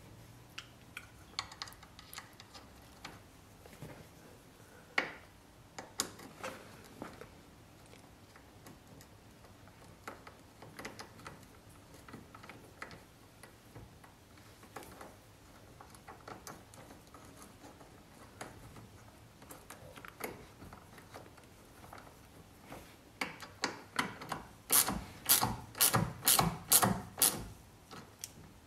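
Light clicks and taps of small parts being handled, then, near the end, a ratcheting screwdriver clicking in quick, even strokes, about three a second, as it drives in small screws.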